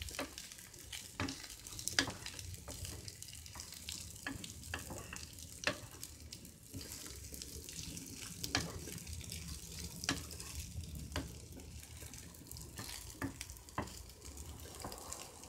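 Diced fried potatoes, sucuk slices and peppers sizzling in oil in a frying pan while a wooden spoon stirs them, with irregular clicks and scrapes of the spoon against the pan.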